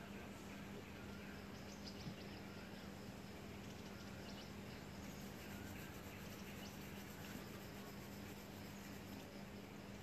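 Quiet room tone: a steady low hum under faint hiss, with a few faint, scattered high chirps.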